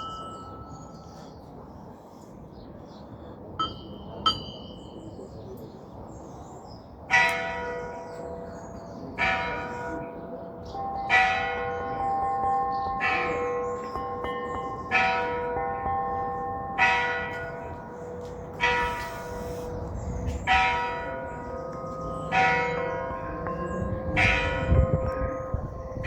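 Church bells on display being rung: a few light strikes on a small, high-pitched bell at first, then about ten regular strikes on larger bells, about one every two seconds, each ringing on with a long hum that carries into the next.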